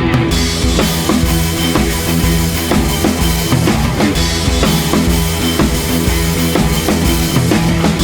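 Rock background music with a steady drum-kit beat, bass drum and snare.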